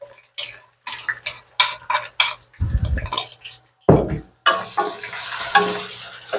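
Wooden spatula scraping and clattering against an aluminium pot as ginger-garlic paste is stirred into onions frying in oil, with two heavy knocks about three and four seconds in. From about four and a half seconds in, the oil sizzles steadily as the paste hits it.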